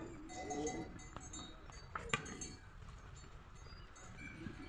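Small metal bells clinking and jingling, with a few sharp clinks about a second and two seconds in that ring on briefly.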